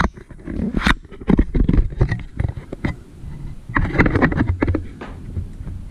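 Handling noise from a camera being picked up and carried around: irregular knocks, clicks and rubbing, in dense clusters at the start, in the middle and again about four seconds in.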